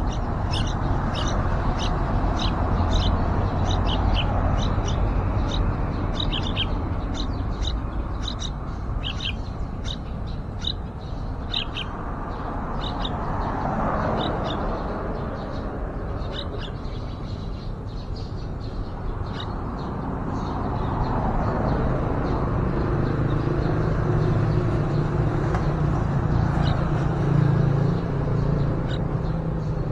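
Many quick, high bird chirps, dense through the first half and sparser later, over a steady rumbling background that swells twice, with a low hum coming in about two-thirds of the way through.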